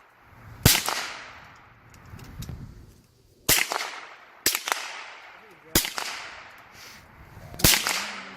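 Five gunshots fired at an uneven pace, each a sharp crack followed by a long echo fading away.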